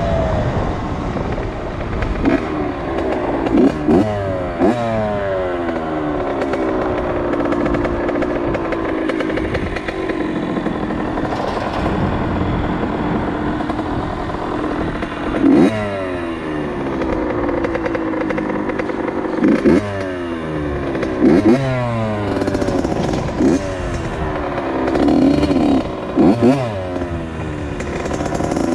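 2001 Honda CR80's 80cc two-stroke single-cylinder engine being ridden hard, its pitch repeatedly climbing and dropping as the throttle is opened and shut, with several short louder revs.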